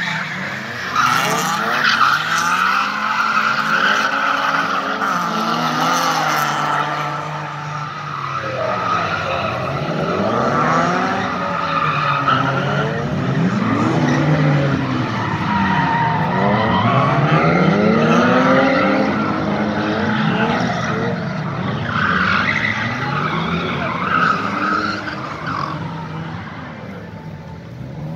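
A drifting BMW E36's engine revving up and down over and over, with long tyre squeals as the car slides. The squealing is strongest through the first dozen seconds and again a little past the middle.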